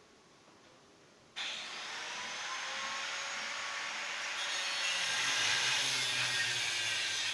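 A small electric appliance switches on suddenly about a second and a half in and runs with a steady, hissing whir that grows slightly louder.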